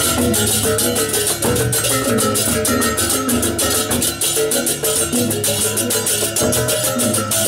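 Balinese processional gamelan (baleganjur) playing loudly: fast, even cymbal clashes over a repeating melody on tuned gongs, with drums.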